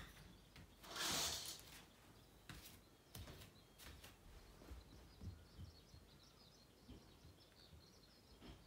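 A curtain is drawn with one short swish about a second in, followed by a few soft knocks and faint high bird chirps from outside.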